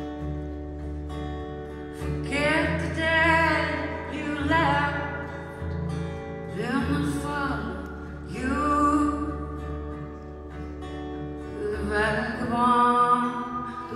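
A woman singing a slow song in drawn-out phrases over a strummed acoustic guitar, performed live.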